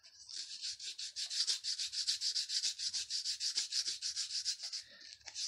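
Sandpaper rubbing on a balsa-wood float body as it is twisted in the paper to shape it to a point. The rasping strokes are quick and even, and they stop about five seconds in.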